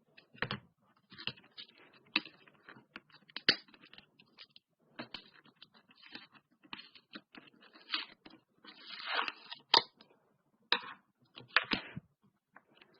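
Slime being squished and poked by hand, giving irregular sharp clicks, pops and short crackles, with a longer squelch about nine seconds in.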